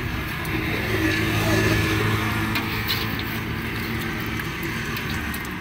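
Road traffic: a motor vehicle's engine running close by, growing a little louder over the first two seconds and then easing off.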